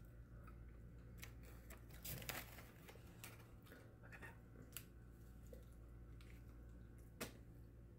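Quiet eating sounds: a quesadilla being bitten and chewed, with faint crinkles of the paper wrapper it is held in and scattered soft clicks, one sharper near the end.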